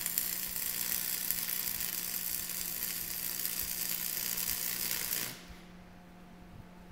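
Stick-welding (shielded metal arc) electrode arc crackling and hissing steadily as a weld bead is laid on steel. It cuts off suddenly about five seconds in when the arc is broken, leaving a steady low hum.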